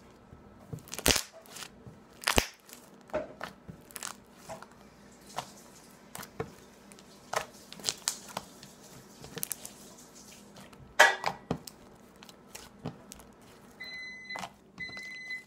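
Thick, clicky white slime being pressed and poked by hand, giving irregular sharp pops and clicks as trapped air bubbles burst, the loudest about a second in, two and a half seconds in and eleven seconds in. Near the end an electronic beep starts repeating about once a second.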